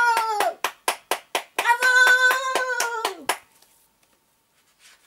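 A steady beat of sharp hand claps, about four a second, under two long held vocal notes that sag in pitch at their ends; both stop a little past halfway.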